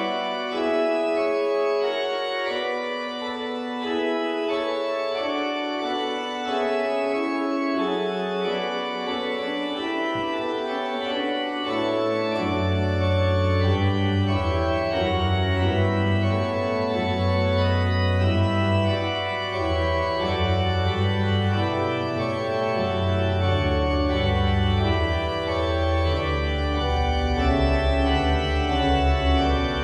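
Pipe organ playing sustained full chords, with deep pedal bass notes entering about twelve seconds in and carrying through to the end.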